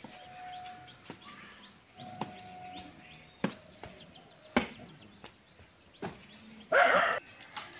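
Rural outdoor ambience with faint birds chirping, a few sharp knocks, and one short loud call about seven seconds in.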